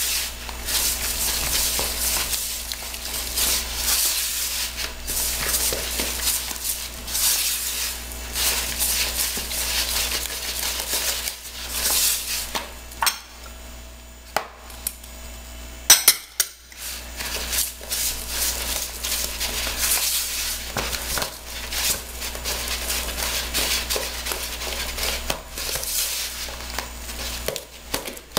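A spoon stirring and beating thick flour batter in a plastic bowl, with continuous scraping and clicking against the bowl's sides. It pauses briefly about halfway through, followed by a single sharp knock.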